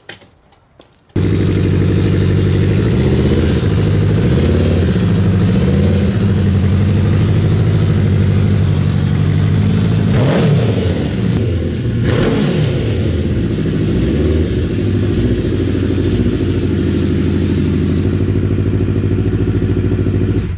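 Honda CBR1000RR inline-four engine in an off-road buggy running under load while the buggy is driven in first gear, with the pitch dipping and climbing again as it is revved around the middle. It starts suddenly about a second in and cuts off abruptly at the end.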